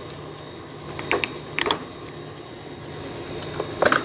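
Several short clicks and clunks over a steady low hum as the speed-change levers on a geared-head lathe's headstock are shifted: two about a second in and a louder cluster near the end.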